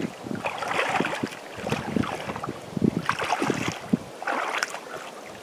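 Water sloshing and splashing in irregular bursts as a man wades through shallow water, with wind buffeting the microphone.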